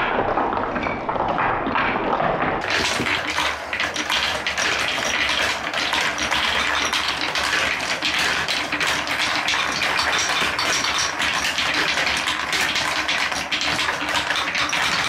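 Marble-run balls rolling and clattering down wooden and plastic track sections, several at once, in a dense, continuous rattle of clicks and knocks. It sounds duller for the first two seconds or so.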